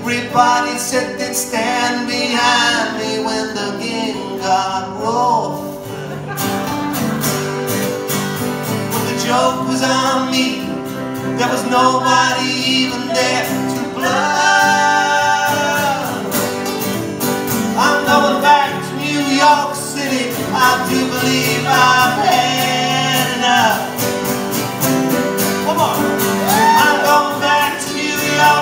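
Live band playing a song: acoustic guitars and piano under male voices singing, with a second voice in harmony.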